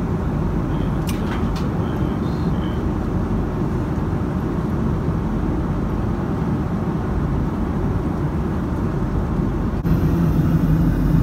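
Steady roar of a jet airliner's cabin in flight, with a few light clicks in the first seconds. Near the end it jumps louder, with a stronger low hum.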